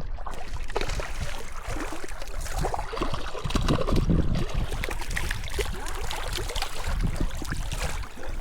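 Irregular splashing and sloshing of water, with many small clicks and knocks.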